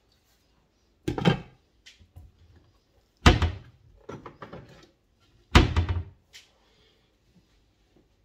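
Three loud knocks about two seconds apart, each with a short ringing tail, with lighter clicks and clatter between them: kitchen things being knocked, set down or shut during cooking.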